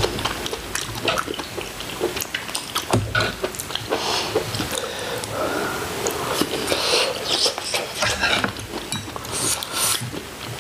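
Close-up mukbang eating sounds: wet chewing and smacking of saucy braised chicken, with many small clicks and taps throughout.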